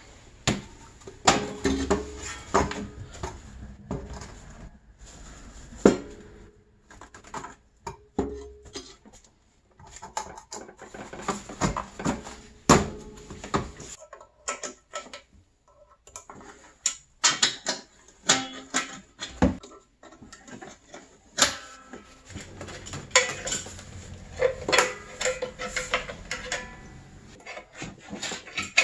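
Steel snowmobile exhaust parts, the expansion chamber and its muffler, being worked into place by hand: irregular metal clanks, knocks and rattles.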